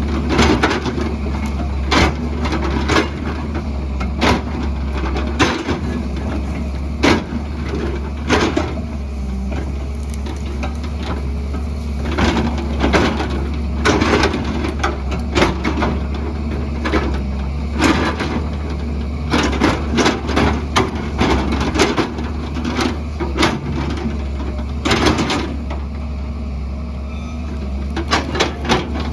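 JCB excavator's diesel engine running steadily, with frequent sharp, irregular knocks and cracks of rock and soil being struck and dug.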